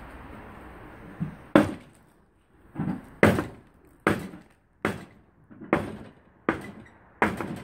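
Rusty steel brake drum from an Opel Corsa rear hub being knocked against a cast-iron bench vise: about seven sharp metal knocks, unevenly spaced, roughly one a second.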